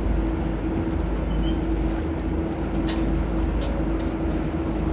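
Steady drone of a boat's engine heard on board, a constant hum over a low rumble.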